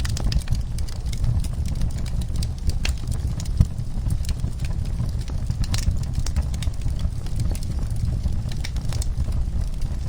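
Wood fire in a fireplace crackling: irregular sharp pops and snaps over a steady low rumble of burning, with one louder pop about three and a half seconds in.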